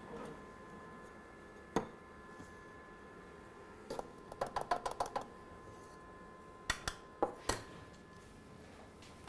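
Clicks and taps from handling a handheld roast colour meter and its ground-coffee sample dish on a bench. There is a single click, then a quick rattling run of about eight clicks around four to five seconds in, then three more knocks near the end.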